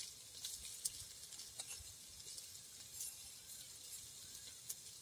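Faint sizzling of shallots, garlic and dried red chillies frying in hot oil in a clay pot, with scattered small crackles.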